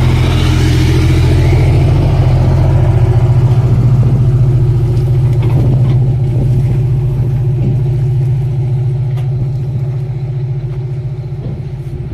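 Heavy diesel engine running with a steady low hum, gradually fading after about six seconds.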